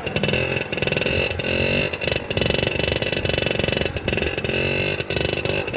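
Vintage Vespa scooter's two-stroke single-cylinder engine running on the throttle through a wheelie, its pitch wavering up and down with a few brief dips as the throttle is worked to hold the front wheel up.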